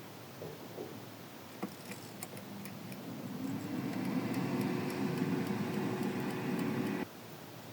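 Air fryer: a few light clicks, then its fan and heater running with a steady hum and faint held tone, building up over about a second and cutting off suddenly near the end.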